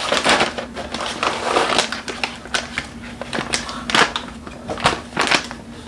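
A packaged coffee bag crinkling and rustling as it is pulled out of a cardboard box and turned over in the hands, with irregular crackles and a few sharper clicks.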